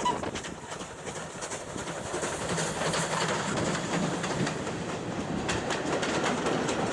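Steam-hauled passenger train passing close by: the coaches roll past with their wheels clicking over the rail joints, loudest at the very start as the locomotive goes by. The sound cuts off suddenly near the end.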